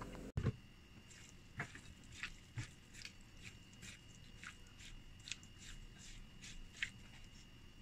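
A hand mixing sliced, soaked dried mushrooms in a soy sauce and cornstarch marinade in a ceramic bowl: faint, irregular wet clicks and squelches, a few a second.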